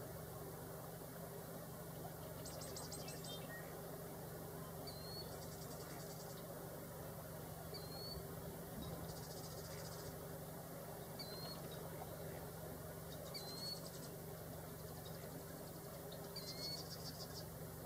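Faint high rattling trills from a bird, about every two to three seconds, each a quick run of fine ticks, most led by a short rising note, over a steady low hum.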